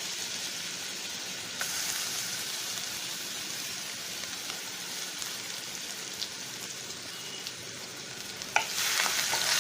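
Ground masala paste of roasted cumin, coriander, garlic and green chillies sizzling steadily in hot oil in a nonstick kadai as it is stirred, with a few light knocks against the pan; it gets louder near the end.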